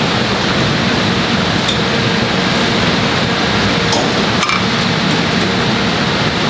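Steady hum and hiss of a hydraulic silicone compression-molding press and the factory machinery around it, with a couple of light metallic clinks about four seconds in.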